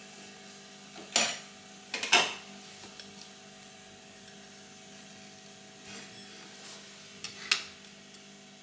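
A few sharp clunks and knocks of a work lamp being moved and set into position on a bench: one about a second in, a quick pair about two seconds in, and another near the end, over a steady background hum.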